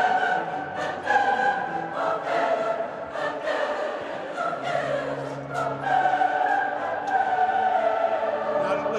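A large choir singing long, sustained phrases.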